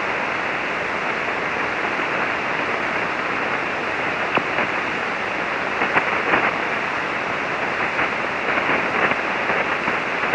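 Steady hiss of 40-metre band noise from an HF transceiver's receiver in SSB mode, with a few faint static crackles. It is an open, unmodulated channel while the other station is not talking.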